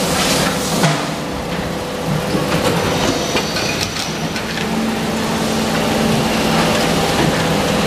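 Plastic injection moulding machine running with a steady mechanical hum, with a few short knocks and clacks.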